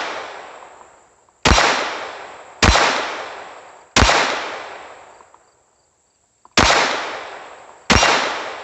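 Glock 44 .22 Long Rifle pistol fired five times at an uneven pace, each sharp shot trailing off in a long echo.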